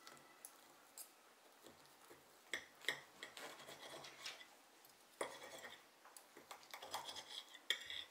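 Scattered light clinks and clicks of small hard objects being handled, in a few short clusters.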